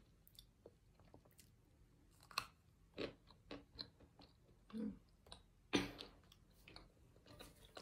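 Close-up chewing and biting of pieces of baked cornstarch brick: irregular soft crunches and clicks, the loudest about two and a half seconds in and again near six seconds in.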